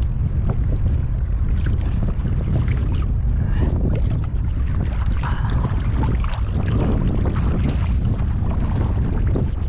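Heavy wind buffeting the microphone, a steady low rumble, with irregular sloshing and splashing of seawater as someone wades through it.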